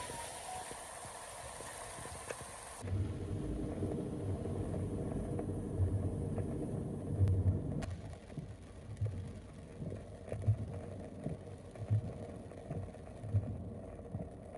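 Floodwater rushing and splashing against a vehicle driving through a flooded street. After about three seconds the sound cuts to a low, steady rumble inside a car's cabin, broken by irregular dull thumps.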